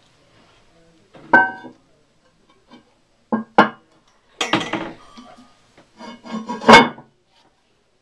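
The porcelain lid of a 1959 Standard Cadet toilet tank being set back onto the tank: about five clinks and scrapes of china on china, each with a short ring. The loudest clunk comes near the end as the lid settles into place.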